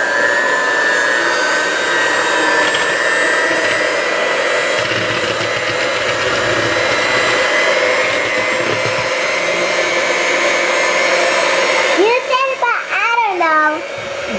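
Hamilton Beach electric hand mixer running steadily with a high motor whine as its beaters mix cake batter in a plastic bowl; the whine stops about twelve seconds in and a child's voice follows.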